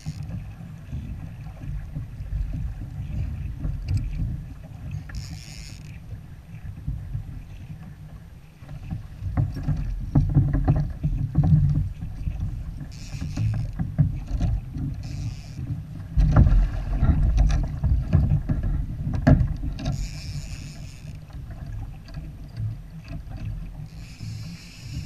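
Sea kayak on the water: a steady low rumble of water and wind against the hull and microphone, with clusters of sharp knocks and clatter on the kayak partway through and again later.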